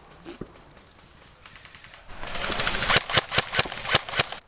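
Airsoft guns firing. Faint rapid ticking starts about a second and a half in, then a dense, louder run of sharp clicking shots follows, settling into a steady string of about five shots a second.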